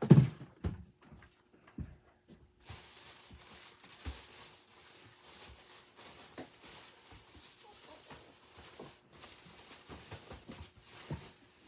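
Boxes and packaging being handled: a single heavy thump right at the start, then soft rustling with scattered light knocks and clicks.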